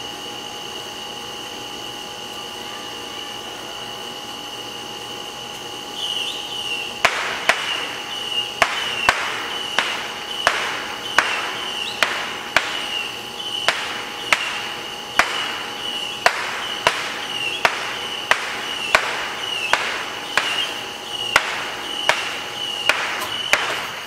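Fireworks going off: a hissing rush starts about six seconds in, then a regular run of sharp bangs, roughly one and a half a second, over a steady high-pitched whine.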